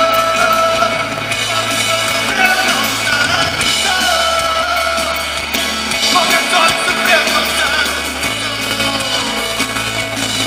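Live rock band playing loudly: a sung melody over electric guitar, bass guitar and drums with cymbals, the bass note changing every few seconds.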